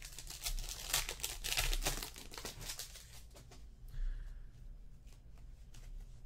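Trading cards being handled and flipped through by hand, sliding and rustling against each other: a quick run of clicks and rustles over the first two and a half seconds, then fainter, sparser ones.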